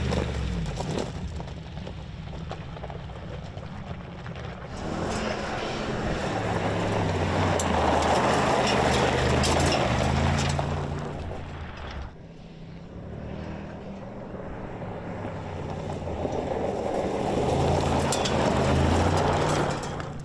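Mercedes-Benz G-Class twin-turbo V8 engine revving and running hard under off-road driving, its pitch stepping up and down, with tyres on loose gravel and dirt. The sound swells loud twice, about nine seconds in and again near the end, and drops suddenly about twelve seconds in.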